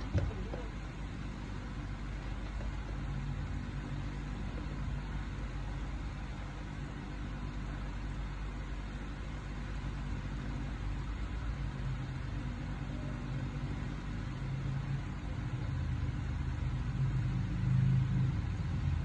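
Steady low motor hum that grows somewhat louder near the end, with a single sharp click just after it begins.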